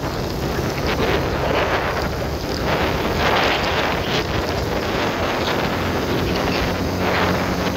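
Wind buffeting a phone microphone on a moving motorcycle, coming in gusts, with the motorcycle's engine running underneath.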